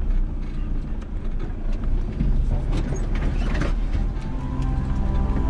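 Off-road 4WD driving along a track, a steady low rumble from inside the vehicle with scattered knocks and rattles. Background music comes in about four seconds in.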